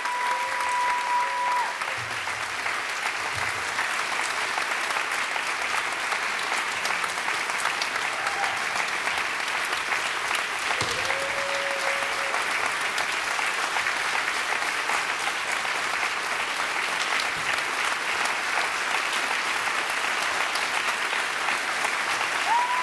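Theatre audience applauding steadily, with a few short whistles over the clapping.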